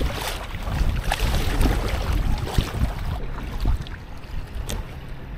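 Kayak paddle strokes splashing through choppy water, with water sloshing against the hull and wind buffeting the microphone.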